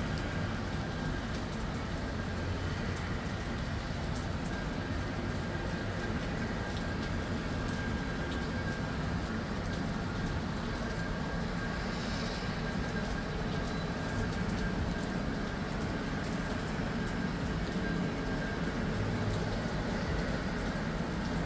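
Cog railway steam locomotive working up the grade at a distance: a steady low rumble with no whistle.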